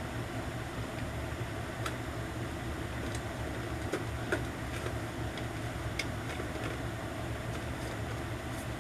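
Scattered light clicks and taps of plastic phone cases being handled and put up on a display, over a steady low hum.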